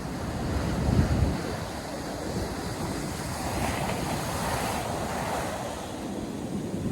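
North Sea surf breaking and washing up the beach, a hissing wash swelling and fading in the middle, with wind rumbling on the microphone in a gust about a second in.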